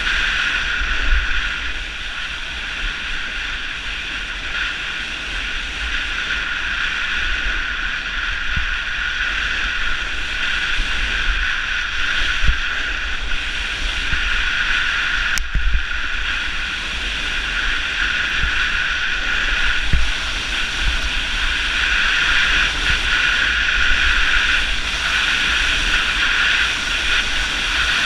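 Snowboard sliding over packed snow, a steady scraping hiss, with wind buffeting the action camera's microphone as a low rumble and a few short knocks from bumps in the run.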